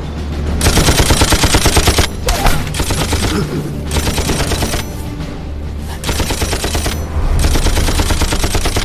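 Heavy machine gun firing in several long automatic bursts with brief pauses between them, over a low music score.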